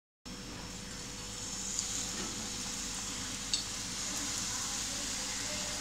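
Hot oil sizzling steadily in an aluminium kadai as tomato chakli dough is pressed into it from a metal chakli press, growing slightly louder, with two light clicks, one about two seconds in and one about three and a half seconds in.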